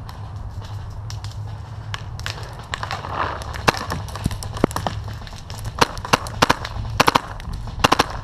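Paintball markers firing: sharp pops scattered one at a time, then quick strings of two or three shots near the end.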